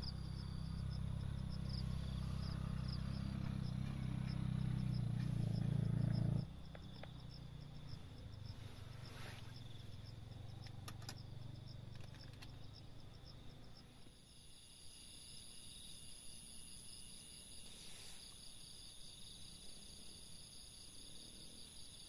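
Crickets and other insects chirping steadily in a repeating high trill. A loud low hum runs under them for the first six seconds, then cuts off abruptly.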